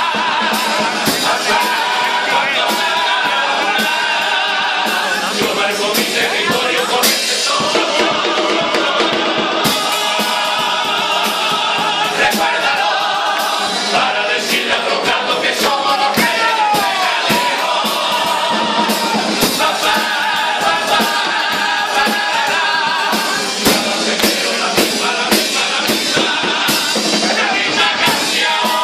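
A carnival comparsa troupe singing in chorus over a steady percussion beat, performed live.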